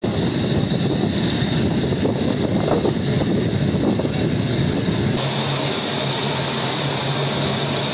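Steady engine noise from vehicles and aircraft on an airfield apron. About five seconds in, a busier, uneven rumble gives way abruptly to a steadier hum with one low engine tone.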